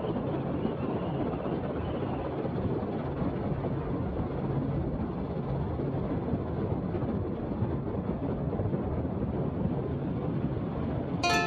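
Helicopter in flight, heard from on board: a steady, muffled rotor and engine noise with a low hum.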